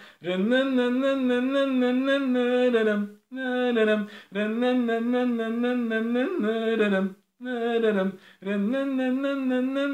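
A man humming a melody unaccompanied, holding steady notes in phrases of a few seconds with short pauses for breath between them.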